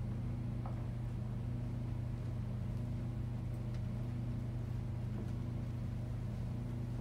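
Steady low hum of room tone, with a faint click just under a second in.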